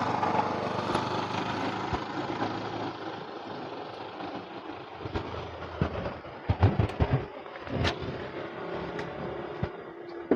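A motor vehicle passing by, its engine and road noise loudest at the start and fading away over several seconds. A few short sharp clicks or knocks come about halfway through.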